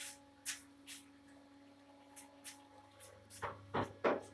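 Scattered light taps and clicks, then a quicker run of heavier knocks near the end, over the faint steady hum of a bathroom extractor fan that runs whenever the light is on.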